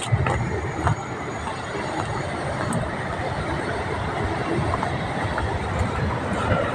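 Steady rush of sea waves breaking on the shore, a continuous roar with no single wave standing out.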